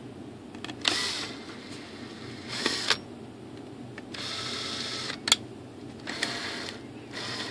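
Cordless drill-driver spinning in four short runs, the longest about a second, driving a small screw through a plastic control horn into the foam tail surface. There are a couple of sharp clicks between the runs.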